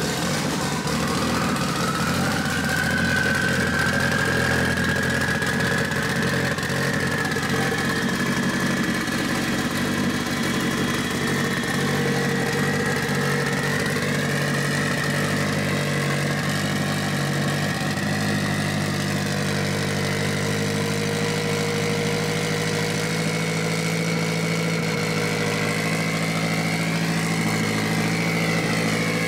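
Freshly rebuilt Mitsubishi 4G63T turbocharged four-cylinder idling steadily, now that the air leak from an unhooked hose has been fixed. A high whine over the engine note climbs in the first couple of seconds and then holds.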